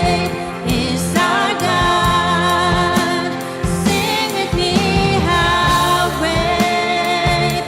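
Live church worship band playing with singing: a wavering sung melody over sustained chords, bass and regular drum hits.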